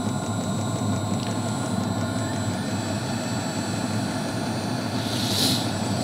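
Portable diesel air heater running: a steady drone from its combustion blower and burner, its exhaust fitted with a silencer, with a thin steady high whine over it. A short hiss comes near the end.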